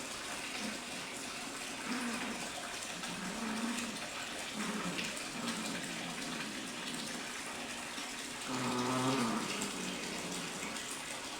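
Cats in a fighting standoff giving low, drawn-out growling yowls: short ones now and then and a longer, louder one about eight and a half seconds in. A steady watery hiss runs underneath.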